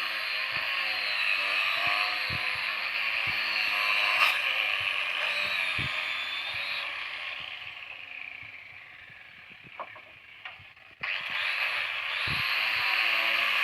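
Electric power sander running steadily on wood, with a faint whine over its noise. It is switched off and winds down over a few seconds, a few light knocks follow in the lull, then it starts up again suddenly and runs on.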